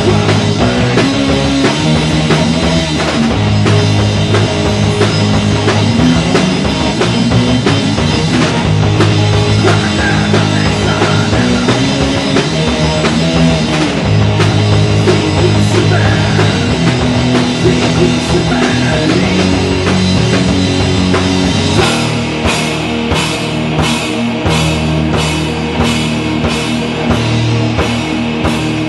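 Live heavy rock band playing an instrumental passage: electric guitars over a drum kit, loud and dense. About two-thirds of the way in the riff changes and the drums switch to heavy, evenly spaced hits about twice a second.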